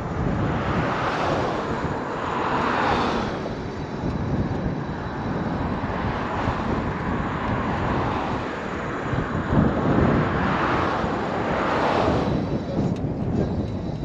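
Highway traffic passing close by: tyre and engine noise swells as vehicles go past, around two seconds in and again around eleven seconds in, over a steady low rumble.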